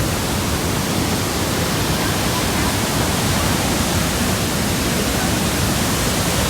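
Elephant Falls waterfall, a steady loud rush of falling water close by.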